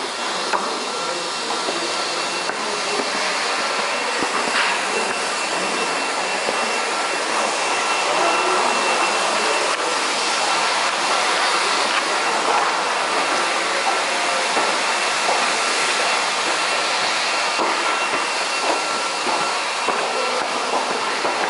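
Steady noise of a subway station, with two faint steady tones running through it and occasional footsteps on the stone stairs.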